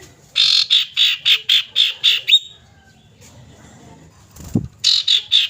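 Common iora calling: a fast run of about eight loud, high, chattering notes, roughly four a second, then a second run starting near the end.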